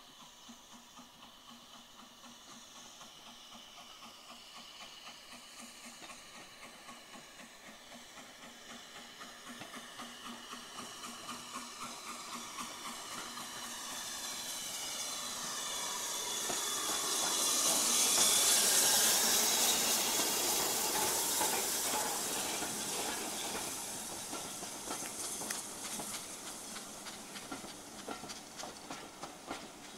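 BR Standard Class 4 steam locomotive running into the station: its sound grows steadily, peaks about two-thirds of the way through with a loud hiss of steam as it passes close, then fades as the coaches roll by with a regular clicking of wheels over rail joints.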